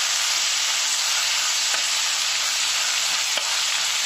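Sliced onion, tomato and coconut bits sizzling in hot oil in a clay pot as a spatula stirs them: a steady frying hiss with a few light scrapes of the spatula.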